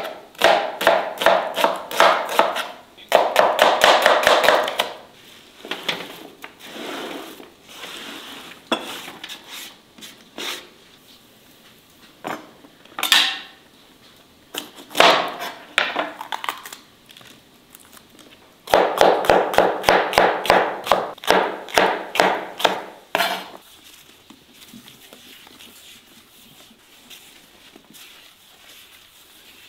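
Kitchen knife chopping onions on a wooden cutting board in fast runs of strokes, about five a second: one run in the first five seconds and another from about 19 to 23 seconds, with a few single knocks between.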